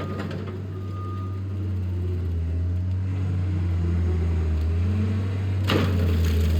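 John Deere skid steer running steadily with a low drone, slowly growing louder. Near the end comes a sudden crackle of wood splintering as the brush hog attachment chops into brush and trees.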